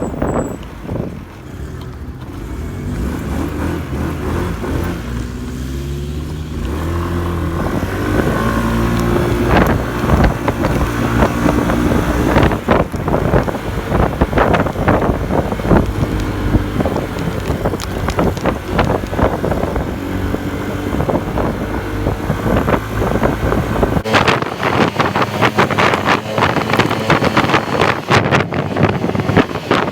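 Motorcycle engine running while riding, its pitch rising and falling with the throttle, with wind buffeting the microphone. About two-thirds of the way through, the deep rumble drops away, leaving a rougher, crackly wind noise.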